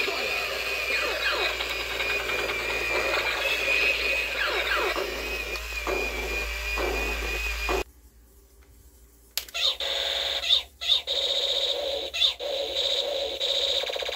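Battery-powered toy robot playing electronic sound effects through its small speaker: a wavering high tone with sweeping laser-like glides, which stops abruptly about eight seconds in. After a short near-silent gap, a second toy robot sounds pulsing electronic beeping tones with a few clicks.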